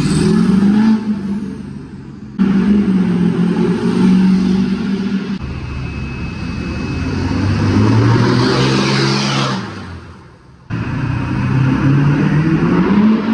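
Lifted pickup truck engines driving past one after another, revving up and easing off, with a strong rev build-up about two-thirds of the way in. The sound breaks off and jumps abruptly twice where separate clips are joined.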